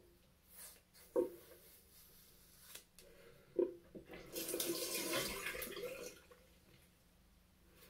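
A few short scrapes of a Mach 3 cartridge razor on a foamed scalp, then a tap running for about two seconds.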